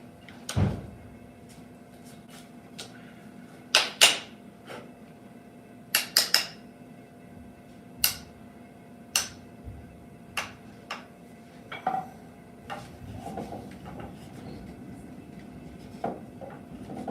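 Irregular sharp knocks and clicks of hand tools being handled against wood, about a dozen scattered through, some in quick pairs, over a faint steady hum.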